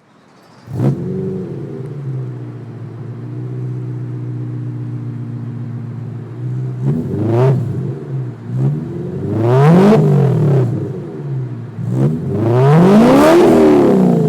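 BMW E9X M3's 4.0-litre V8 starting through its exhaust with a brief flare, settling into a steady idle, then revved. A short blip comes first, then two longer revs that each rise and fall, the last the loudest.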